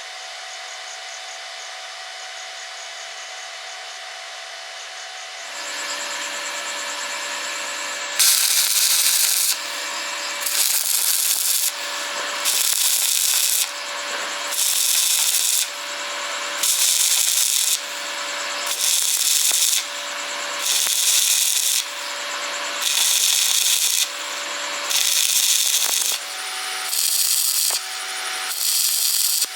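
Power tool motor running steadily, then from about eight seconds in working in regular strokes: a harsh grinding-scraping noise about a second long repeating roughly every second and a half over the steady motor tone.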